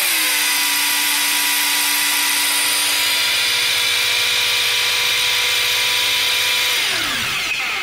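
Electric drill spinning a G309 brushless tractor generator (MTZ/YuMZ type) at steady speed, a loud even whine over hiss. The pitch falls and the sound winds down near the end as the drill is released. This is an output test with the voltage regulator disconnected, the generator giving about 19 V unregulated.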